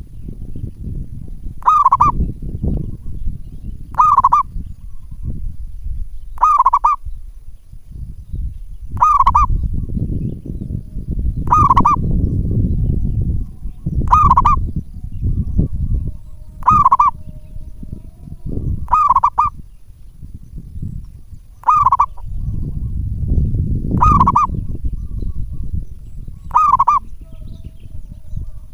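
Zebra dove (local perkutut) singing persistently: a short, high coo repeated evenly about every two and a half seconds, over a low rumble.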